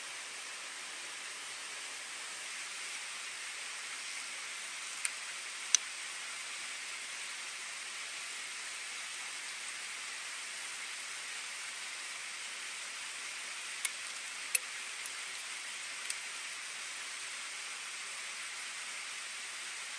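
Steady rushing hiss of river water. A few short, sharp clicks cut through it: two about a quarter of the way in and four more just past the middle.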